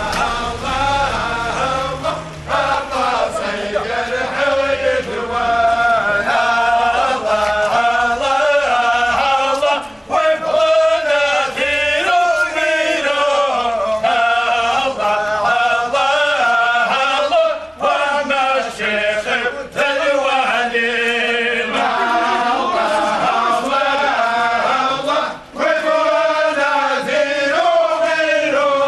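Large group of men chanting together in unison in a Muslim funeral procession, a slow melodic religious chant in repeated phrases. It breaks off briefly for a breath every seven or eight seconds.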